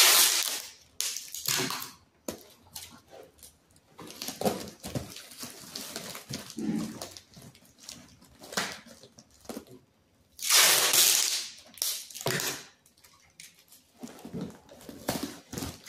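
Clear packing tape pulled off the roll with a screeching rip in several strips, the longest about ten seconds in, with hands rubbing and pressing the tape onto a cardboard box in between.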